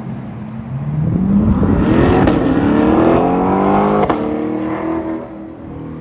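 2023 Chevrolet Corvette Stingray C8 Z51's 6.2-litre V8 accelerating hard on the street, its exhaust note climbing in pitch for about three seconds. A sharp crack comes at a gear change about four seconds in, then the note holds lower and fades as the car pulls away.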